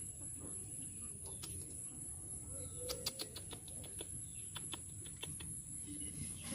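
A hand sloshing and groping in a small, shallow pool of muddy water, with a run of small splashes and clicks in the middle.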